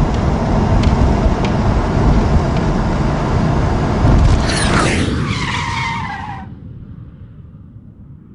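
Road and wind noise inside a van's cabin while driving at highway speed, a steady rumble. A brief falling pitched sound rides over it about four and a half seconds in, and the noise fades out about six and a half seconds in.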